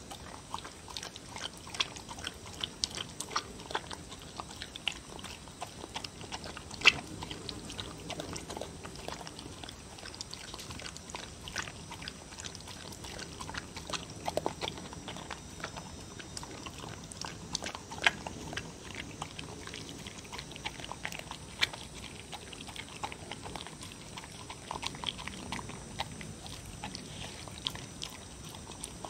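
A dog eating soup from a bowl: continuous wet chewing and slurping mouth noises with many sharp little clicks, the loudest about seven seconds in and again near eighteen seconds.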